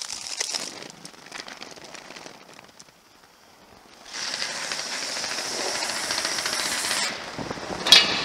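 Roller skate wheels rolling over rough paving: a dense, gritty rattle that grows loud about four seconds in and eases off about a second before the end, followed by one sharp clack.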